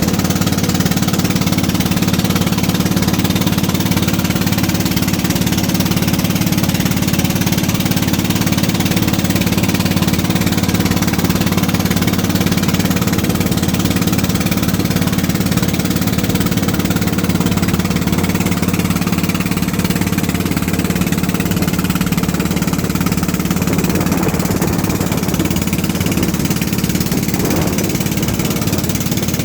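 Boat engine running steadily: a loud, even low drone.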